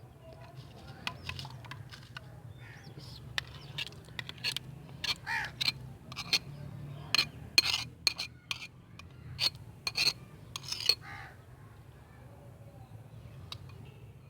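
A spoon clinking and scraping against a bowl in a quick irregular run of sharp clicks while meat is mixed with a yogurt and spice marinade, stopping near the end, over a low steady hum.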